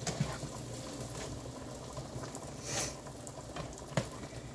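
A pot of potatoes boiling steadily on the stove, alongside the light sizzle of butter melting into caramelized onions in a skillet. A spatula knocks against the pan a few times, loudest near the end, and there is a short hiss a little before that.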